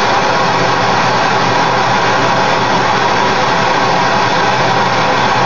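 Two gas torches burning with a loud, steady rush, their flames melting silver in a crucible.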